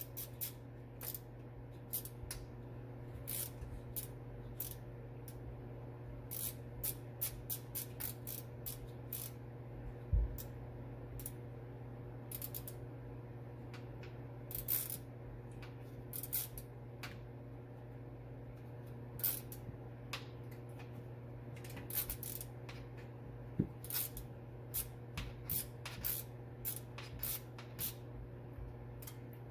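Irregular small clicks, snips and clinks of hand tools and parts being handled during work on the truck's wiring, over a steady low hum. A louder thump comes about ten seconds in.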